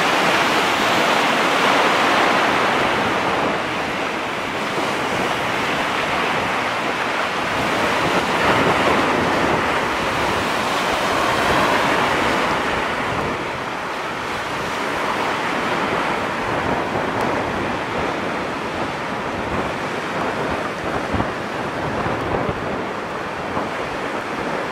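Water rushing and washing over the sand in surges, louder at the start and again about a third and half of the way through, with wind buffeting the microphone.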